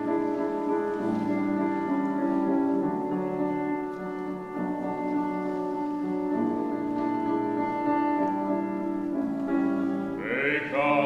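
Male voice choir singing long held chords with piano accompaniment. About ten seconds in, a louder, higher voice with marked vibrato comes in above the chords.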